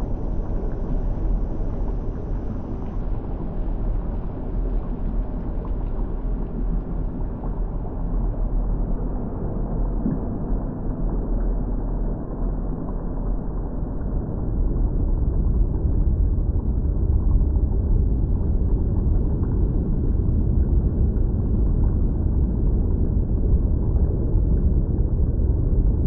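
Bubbling volcanic lava sound effect: a continuous deep rumble with no distinct events, its low end growing fuller and slightly louder a little past halfway.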